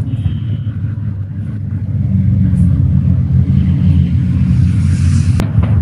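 Motor vehicle engine rumbling, growing louder about two seconds in, with a hiss building above it and a single sharp click near the end.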